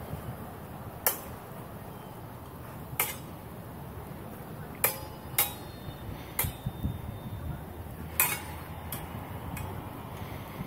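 Training longswords clashing blade on blade in sparring: about seven sharp clanks at uneven intervals, some with a brief ring.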